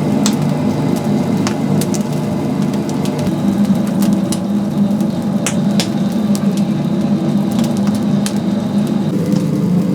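Oak firewood burning in a chicken-roasting fire, crackling with sharp pops about once a second over a steady low hum.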